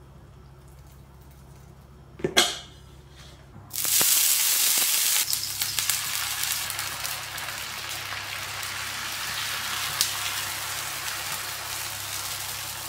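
Dosa batter sizzling on a hot iron tawa, starting suddenly about four seconds in as the batter hits the pan and going on steadily as it is spread out. Before it, a single sharp knock about two seconds in.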